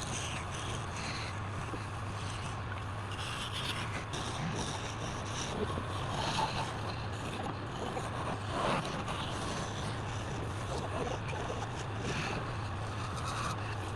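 Wood lathe running with a steady motor hum, while a turning tool scrapes and cuts the spinning workpiece in irregular strokes.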